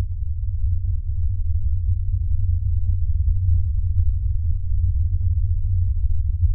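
A deep, steady electronic hum, very low in pitch, holding level with no other sound over it.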